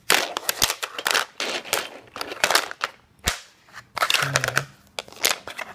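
Plastic toy train track pieces clattering and clicking sharply as they are handled and fitted together, with two especially sharp clicks.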